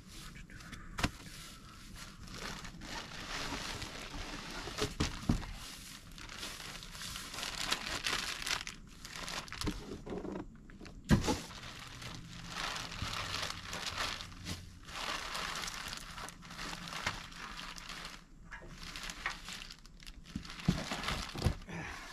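Plastic packaging crinkling and tearing as it is pulled and stripped off in repeated handfuls, with a few sharp knocks, the loudest about eleven seconds in.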